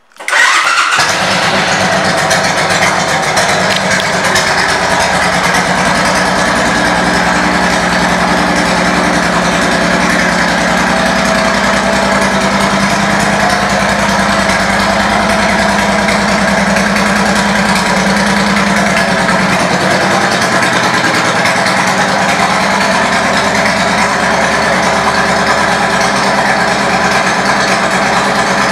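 2006 Suzuki Boulevard C90T's V-twin engine, fitted with aftermarket Cobra exhaust pipes, starting at once and settling into a steady idle.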